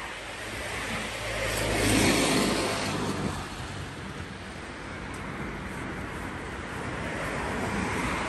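A motor vehicle's engine passing close on the street, swelling to its loudest about two seconds in and fading, over steady city traffic noise.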